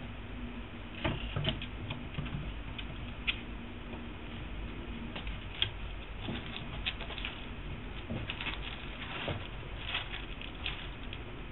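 Kitten's paws and claws scratching and tapping on a tabletop as it plays with its own tail: irregular soft clicks and scuffs over a faint steady hum.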